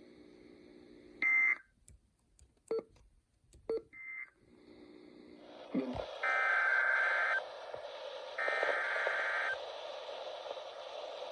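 NOAA Weather Radio SAME data bursts: two short bursts of the warbling two-tone data signal, then the receiver channel opens with a hiss and two longer, louder header bursts sound about a second apart, the digital header that starts a new alert, here a severe thunderstorm warning.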